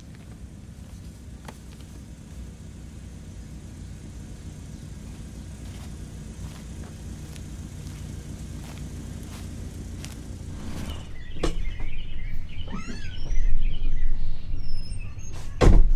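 Vehicle engine running with a steady low rumble that slowly grows louder. Birds chirp in the last few seconds, and there is one loud thump just before the end.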